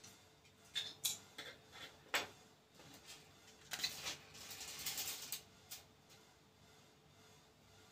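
Small fixed-blade neck knives and their hard plastic sheaths being handled on a table: a few light clicks and knocks in the first couple of seconds, then a scraping rustle lasting about a second and a half as a blade is drawn out of its sheath.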